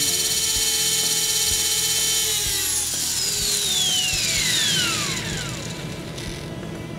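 T-Rex 450 Sport electric RC helicopter's motor and gear drive whining at steady speed with the rotor blades removed, then spooling down from about two and a half seconds in, the whine falling in pitch as the head slows.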